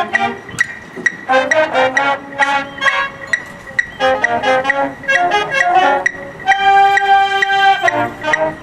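Marching band playing: quick runs of short, detached notes over a steady ticking beat, then a chord held for about a second and a half, starting about six and a half seconds in.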